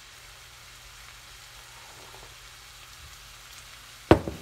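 Sausage frying in a skillet, a steady faint sizzle. About four seconds in, a glass coffee mug is set down hard on the countertop with one sharp knock.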